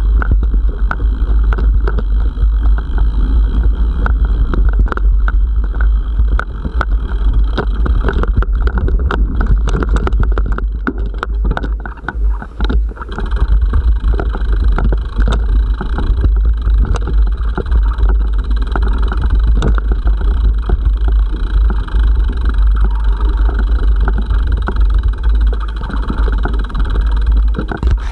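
Bicycle riding over a rough dirt and gravel track, heard through a bike-mounted camera: a loud, constant rumble with wind on the microphone and frequent clatters and knocks as the bike jolts over stones. It eases briefly about twelve seconds in.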